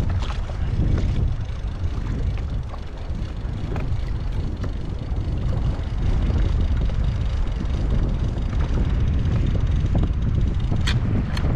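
Strong wind buffeting the microphone: a steady, heavy low rumble, with a few sharp clicks near the end.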